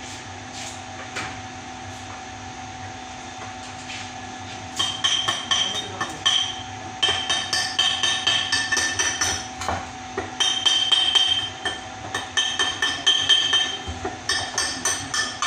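Small hammer tapping rapidly on a metal pipe, each strike ringing metallically, in runs of a second or two with short pauses, starting about five seconds in. A steady faint hum sits underneath.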